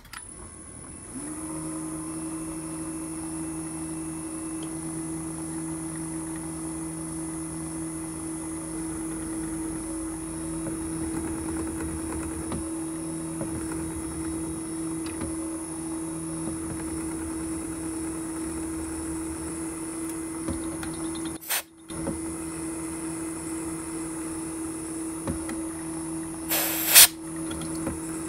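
Drill press motor starting about a second in and running steadily with a high whine, as a small twist drill bores into a brass leadscrew nut. A single sharp knock comes near the end.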